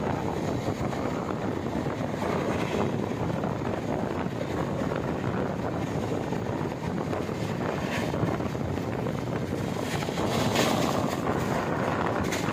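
Passenger express train running at speed, heard from an open coach door or window: a steady rush of wheels on rails and wind, with a few sharper clatters in the second half.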